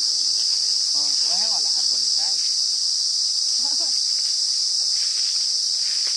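Insect stridulating: a steady, shrill, high-pitched trill that holds without a break.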